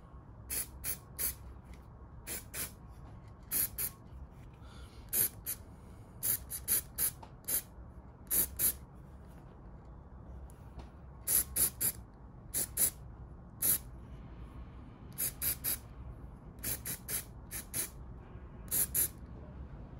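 Aerosol can of Simoniz gloss black spray paint firing a series of short hissing bursts, often two or three in quick succession with pauses between, as a die-cast toy car body is given its colour coat.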